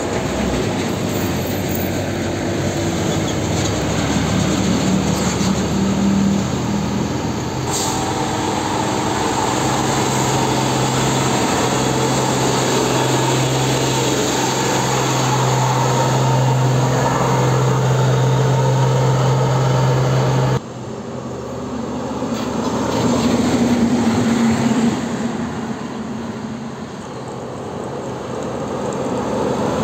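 Heavy diesel trucks driving past on a road: engine drone and tyre noise. A loud steady engine hum runs through the middle, where an Isuzu Giga's engine is heard at close range. The sound changes abruptly about 8 and 21 seconds in, as one truck gives way to the next.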